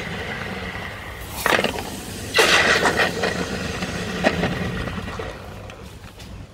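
Hot copper castings quenching in a steel pot of water: hissing and bubbling as the water boils against the metal, with two louder surges of sizzling about one and a half and two and a half seconds in, dying down toward the end.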